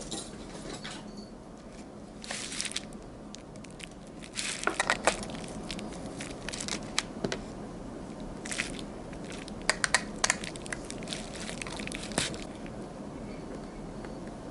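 Hands and tools working on a motorcycle starter motor: irregular clicks, knocks and scrapes of small metal parts being handled, in clusters, over a faint steady hum. The handling goes quiet near the end.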